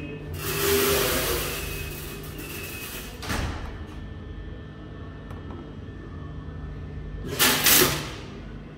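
Automatic coffee weighing machine dosing roasted coffee beans: a rush of beans pouring for about three seconds over a steady machine hum, ending in a short clatter as the dose reaches about 50 g. A second, shorter loud rush of beans comes near the end.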